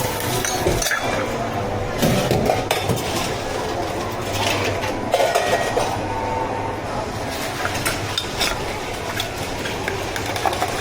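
Clinking and clattering of cups, utensils and containers as bubble tea drinks are made, with many small knocks over a steady low machine hum.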